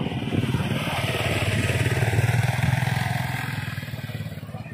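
Small motorcycle engine running as it passes close by on the road, growing louder to a peak about two seconds in and then fading away.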